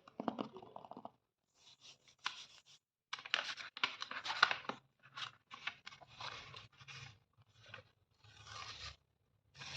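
Paper being torn in a series of separate rips, each a short crackling tear with brief pauses between them.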